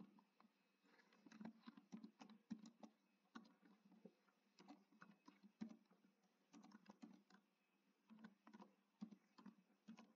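Faint computer keyboard typing: keys clicking in quick runs with short pauses as an email address is typed in.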